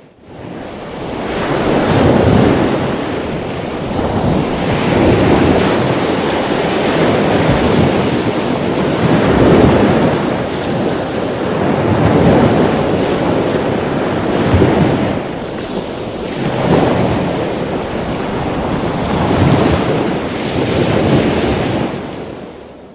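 Ocean waves surging and washing back, a loud rush that swells and falls every two to three seconds, fading in at the start and fading out near the end.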